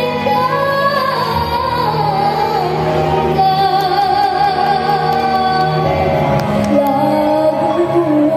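A woman singing a Malay zapin song into a microphone over a recorded backing track, amplified through a PA. Her melody has long held notes with vibrato.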